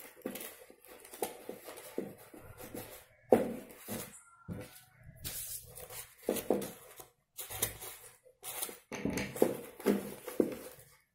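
Dry corn husks and a paper cone rustling and crackling in irregular bursts as they are handled, turned and pressed into place.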